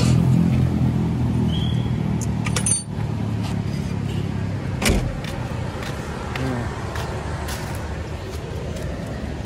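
A vehicle's engine running, its low hum fading over the first few seconds, with a sharp click and then a knock about five seconds in, over a steady low rumble of traffic.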